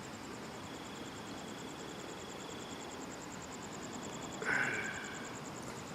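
Outdoor ambience of insects trilling, a fast even pulsing over a steady background hiss, with a short pitched sound about four and a half seconds in.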